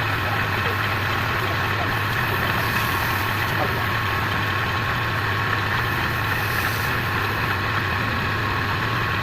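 Wood lathe running steadily with a constant low hum.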